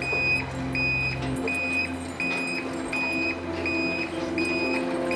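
Electric sliding gate's warning beeper sounding a short high beep about twice a second as the gate moves, over a low steady hum.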